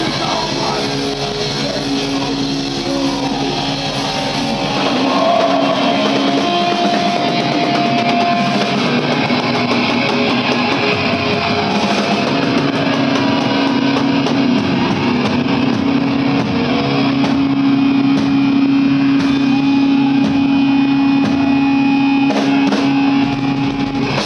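Heavy metal band playing live, loud, with distorted electric guitars holding long sustained notes.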